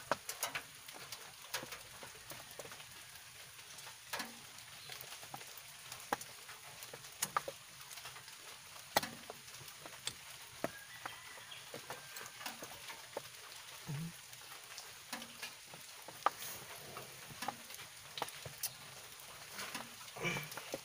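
Faint, irregular small clicks and taps of a motorcycle's carburetor slide and throttle cable being handled and fitted, over a faint steady hiss.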